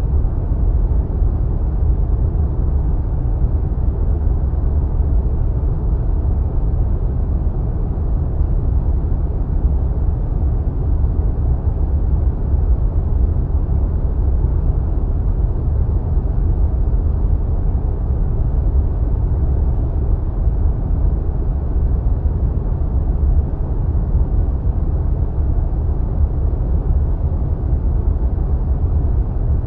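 Steady wind sound effect: a deep, muffled, even rush of wind without gusts or breaks.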